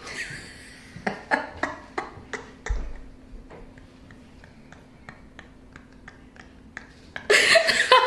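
Neck joints popping during a chiropractic neck adjustment: a quick series of sharp cracks over the first three seconds with a dull thump among them, then a few fainter clicks. A voice comes in near the end.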